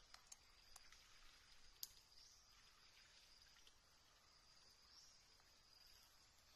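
Near silence with faint, steady, high-pitched insect chirring that dips midway and returns near the end, and a few soft clicks in the first two seconds.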